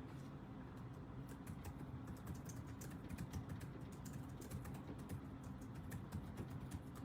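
Rapid, irregular typing on a computer keyboard, many quick clicks starting about a second in, over a steady low hum.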